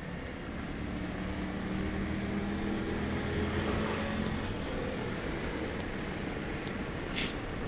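Yamaha Tracer 700's parallel-twin engine running under way up a mountain road, its note rising a little over the first few seconds, under a steady rush of riding wind. A short hiss near the end.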